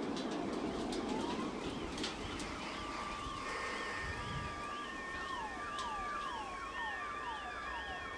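Car alarms sounding. One warbles up and down about twice a second and another repeats falling whoops, with a few last fireworks pops and crackle in the first two seconds.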